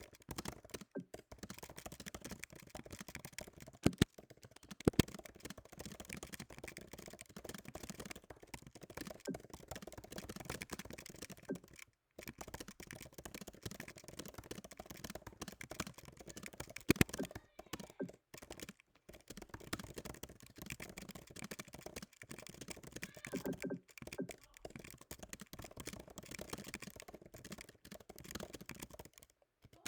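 Fast continuous typing on a computer keyboard, a dense stream of key clicks at about 100 words per minute, with a few much louder key strikes and a couple of brief pauses.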